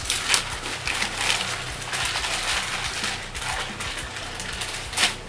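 Packaging being handled: continuous crinkling and rustling with many small clicks, and a sharper knock about five seconds in.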